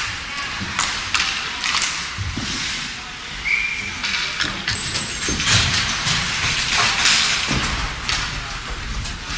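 Ice hockey play in an indoor rink: skate blades scraping the ice, sharp clacks of sticks and puck, and thuds against the boards, with a brief high tone about three and a half seconds in.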